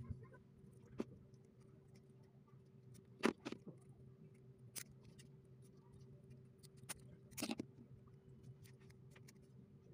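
Scattered light clicks and taps as a small 18650 lithium-ion battery pack and its BMS circuit board are handled, including a quick double tap a little over three seconds in and a short cluster near the end, over a faint steady hum.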